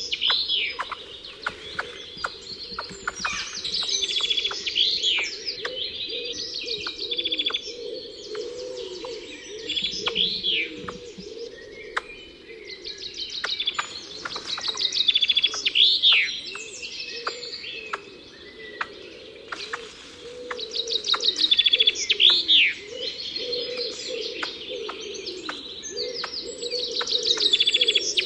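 Wild birds singing and chirping: repeated phrases of rapid high trills, each ending in a sharp swooping note, every few seconds, over softer lower calls.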